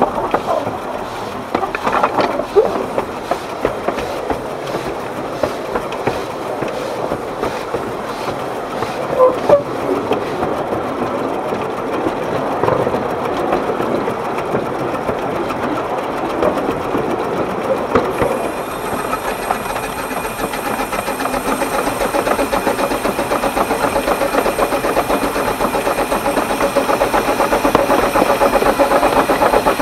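Narrow-gauge (12¼-inch gauge) steam locomotive running with a train of coaches, with sharp clicks and knocks from the wheels on the track as it crosses a bridge. After about eighteen seconds the running sound turns steadier and grows gradually louder.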